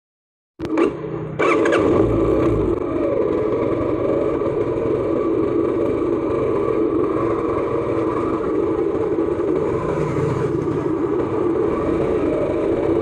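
Motorcycle engine running as the bike is ridden, cutting in abruptly about half a second in after a moment of silence and then holding steady.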